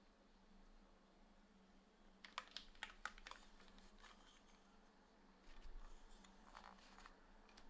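Sparse keystrokes on a Tofu65 3.0 mechanical keyboard with TTRed switches and GMK Darling R2 keycaps on an aluminium plate: a quick run of about six sharp clicks around two seconds in, then a few softer, duller key sounds near the end. The rest is faint.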